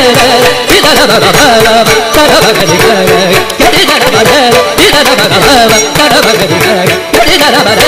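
Carnatic classical music in raga Mohanam, Adi talam: a fast, ornamented melodic line over steady drum strokes.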